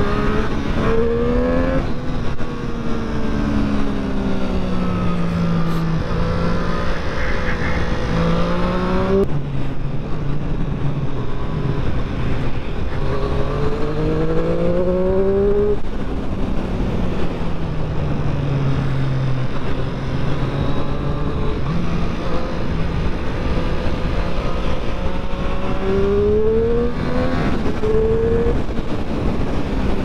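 Triumph Street Triple 765 RS's 765cc inline-three engine under way, over a steady rush of noise. Its pitch climbs under acceleration and drops sharply at several upshifts made with the quickshifter, two in quick succession near the end, and at times it falls away slowly as the throttle is rolled off.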